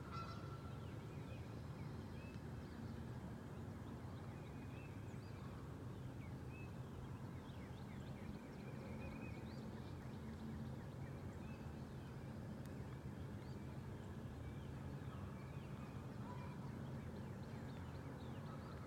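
Geese calling, many short honks scattered throughout, over the steady low hum of a boat motor.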